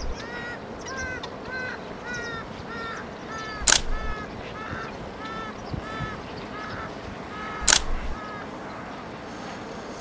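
Black-winged stilts calling: a run of short, nasal, yapping calls, about three a second, which stops about eight seconds in. A loud sharp camera-shutter-like click comes three times, about four seconds apart.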